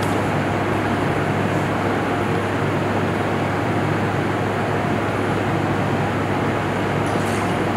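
Steady even hiss with a constant low hum underneath, like room or machine noise, with no distinct knocks or pours standing out.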